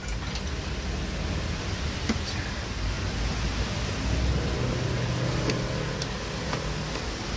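Steady workshop background hum with a few light clicks and taps, as of parts and tools being handled in a car's engine bay.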